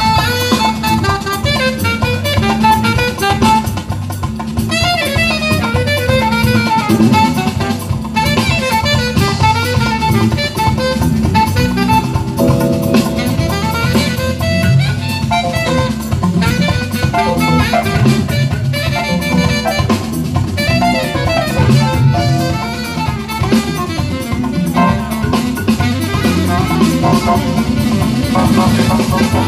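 Live jazz band: a saxophone plays a fast, winding melody over electric bass, drum kit and percussion.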